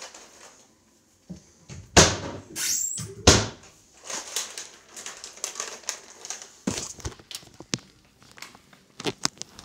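Handling and movement noise: two loud knocks a little over a second apart, then several seconds of rustling with light clicks.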